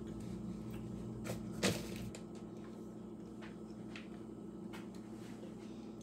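A sharp knock about a second and a half in, with a softer one just before it and a few faint clicks later, over a steady low hum.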